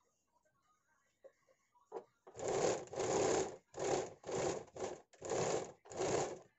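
A domestic sewing machine stitching a blouse seam. It runs in about five short stop-start spurts beginning about two seconds in, with faint handling clicks before it starts.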